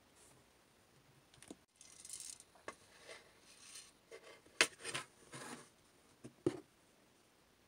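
Tabletop handling sounds: a metal tray of plastic beads being set out, with scraping, small rattles and several sharp clicks, the sharpest about four and a half and six and a half seconds in.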